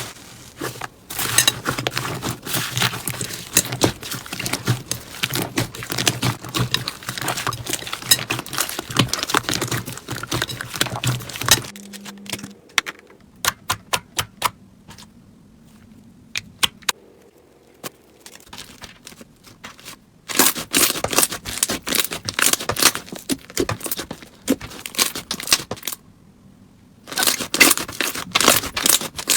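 Slime being squished and pressed by hand: dense runs of sticky crackling and popping, which thin out to scattered single pops for a while in the middle, then turn dense again.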